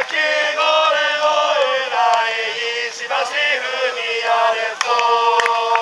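A crowd of football supporters chanting a song in unison, with notes held and then stepping in pitch.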